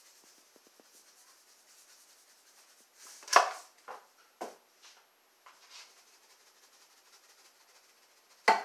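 Spice shaker being shaken over a pan of raw chicken wings: a few short shakes and taps, the loudest about three seconds in and another sharp one near the end, over a faint steady hiss.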